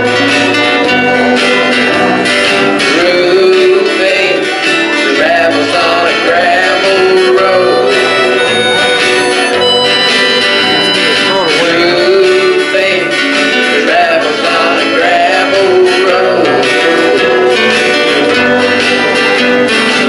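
Gospel song: a man singing into a hand-held microphone over steady guitar-led accompaniment.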